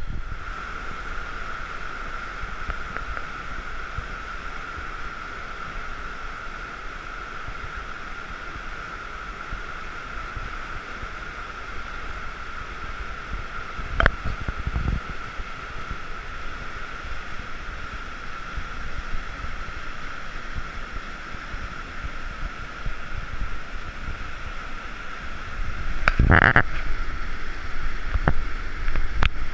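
Steady rushing of whitewater rapids on a river in spate. There is a sharp click about halfway and a brief louder burst near the end.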